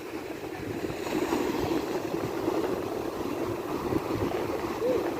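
Sea waves washing on a beach, a steady rushing of surf.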